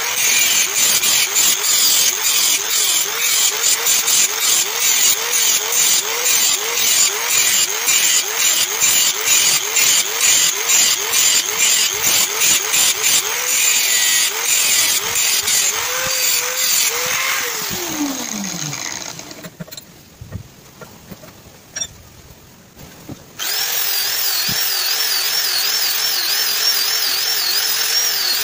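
Angle grinder grinding a spring-steel blade blank, its motor pitch dipping over and over as the disc bites into the steel. After about 17 seconds it is switched off and spins down with a falling whine, goes quiet for a few seconds, then starts again and runs steadily.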